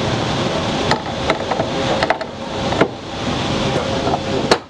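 Metal knocks and clicks as a cargo-floor panel is flipped from its flat side to its roller side and set into the floor track, about seven sharp knocks spread through, the loudest near the end, over a steady background hum.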